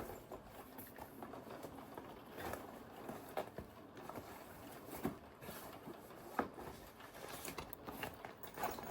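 Faint, scattered rustling and light taps of things being handled, with a few sharper clicks spread through.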